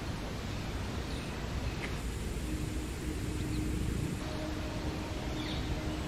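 Steady outdoor background noise, a low rumble with hiss, with a few faint, brief high bird chirps and a faint steady hum from about midway.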